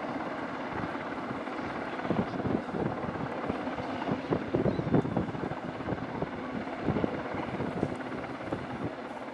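Royal Navy Westland Sea King search-and-rescue helicopter hovering, its rotor and turbine engines running steadily with an uneven low chop.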